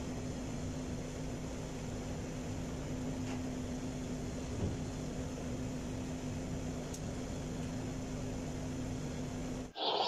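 Steady hum of a ship's switchboard room, a constant low tone over a machinery and ventilation noise, which cuts off abruptly near the end.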